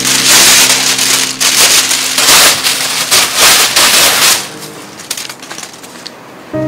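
A large sheet of paper crumpled hard between two hands: a loud, dense crackling rustle for about four and a half seconds, then a few fainter crinkles.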